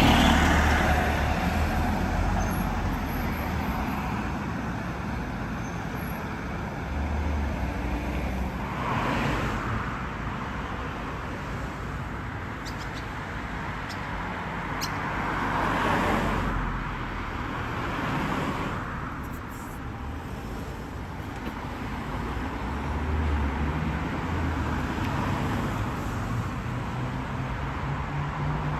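Road traffic on a city street: cars and a coach driving past one after another, each pass swelling and fading over a few seconds, with a low engine hum underneath.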